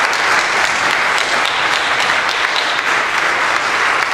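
Auditorium audience applauding steadily, a dense, even clapping.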